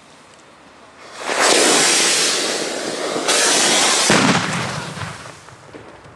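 Fireworks going off: a loud rushing hiss starts about a second in and surges again around three seconds in. There is a sharp low bang near four seconds, then the hiss fades away.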